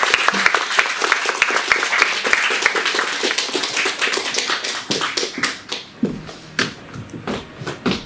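Audience applause: dense clapping that dies away about six seconds in, leaving a few scattered claps.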